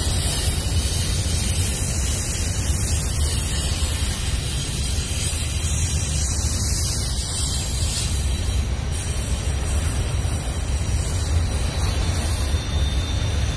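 Union Pacific double-stack intermodal train's well cars rolling past steadily, a low rumble of wheels on rail with a steady hiss over it.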